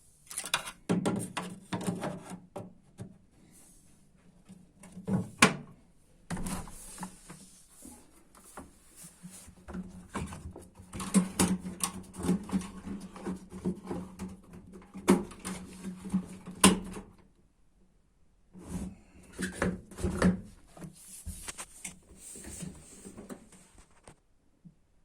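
Irregular clicks, knocks and rattles of parts and tools being handled, in bursts with short pauses, the sharpest knocks about 5 s, 11 s, 15 s and 17 s in.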